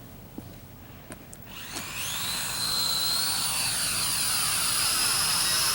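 UDI U818A quadcopter's small electric motors and propellers spinning up about a second and a half in: a rising whine that levels off into a steady high-pitched buzz.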